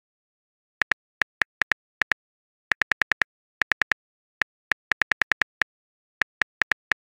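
Virtual phone-keyboard typing clicks, the tap sound effect of a texting app as a message is typed. The clicks come in quick, irregular runs of a few taps, with short gaps between.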